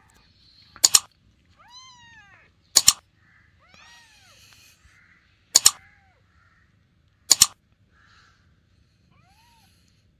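Young kittens mewing: about four short, high-pitched mews that rise and fall. Four loud, sharp mouse-click sound effects from an on-screen like-and-subscribe animation are spaced through it and stand out above the mews.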